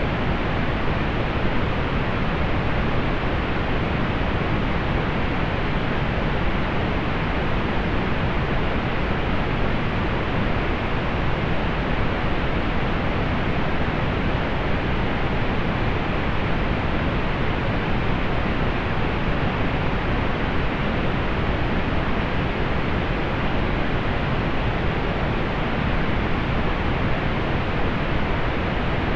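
Steady pink noise: an even, unbroken rush of noise that fades away in the highest treble.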